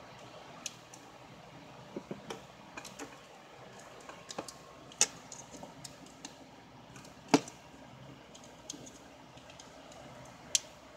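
Snap-in plastic clips of an LG Ultimate 2 smartphone's back cover popping loose as a metal case opener tool pries around the edge: scattered small, sharp clicks and ticks at irregular intervals, the loudest about seven seconds in.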